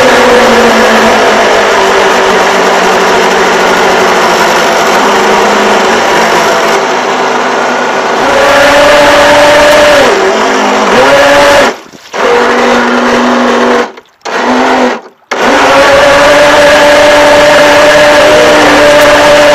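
RC boat's motor running at speed with a high whine. The pitch drops to a lower, steady note over the first couple of seconds as it throttles back, climbs again about eight seconds in, then cuts out briefly three times before holding a steady high pitch again.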